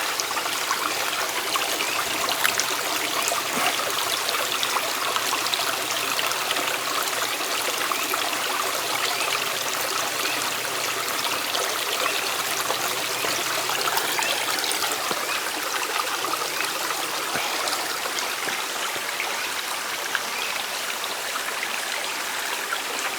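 Small stream running and trickling, a steady rush of water.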